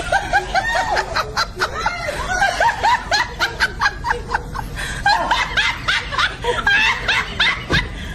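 A person laughing hard, a long run of short repeated 'ha' bursts, several a second.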